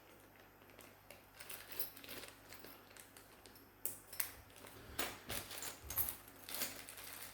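Faint clicks, taps and rustles of small metal hand tools and their plastic packaging being handled, sparse at first and busier past the middle.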